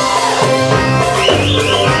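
Live Arabic music played on electronic keyboards: a melody over a steady percussion beat.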